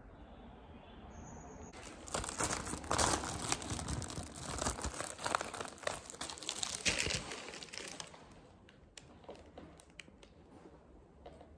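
A plastic bag of food crinkling and rustling as it is handled, loud from about two seconds in, then fading to a few faint crackles near the end.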